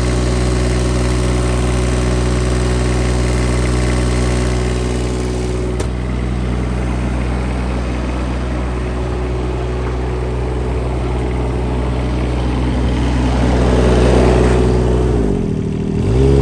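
Bobcat E20 mini excavator's Kubota diesel engine running steadily, very quiet with no knocks or ticks, a sign of a healthy engine. Near the end its speed dips and comes back up twice.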